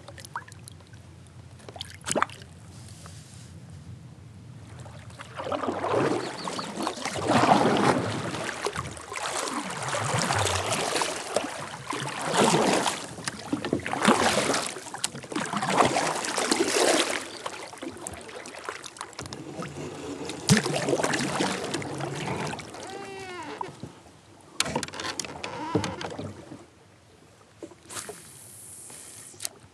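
Kayak paddle strokes swishing and splashing through the water in clusters, with a short splash about two seconds in and a brief hiss of a cast near the end.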